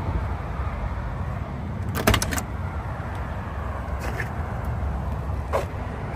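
1967 Pontiac GTO's driver door being opened: a quick cluster of sharp latch clicks and a clunk about two seconds in, then lighter single clicks and knocks later on, over a steady low rumble.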